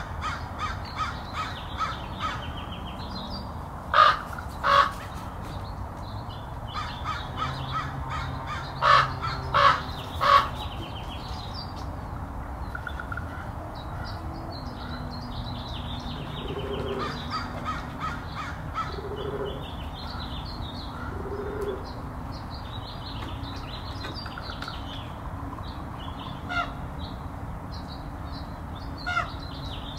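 A flock of American crows cawing and squabbling, with calls from several birds overlapping. The loudest caws come in the first ten seconds, after which the calls thin out to scattered single caws, with smaller birds chirping faintly in the background.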